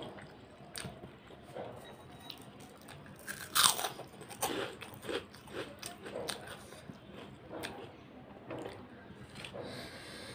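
Close-up eating sounds: a person chewing a mouthful of rice and chicken curry with wet smacking and lip clicks. About three and a half seconds in there is one loud, crisp crunch of a bite into something crunchy.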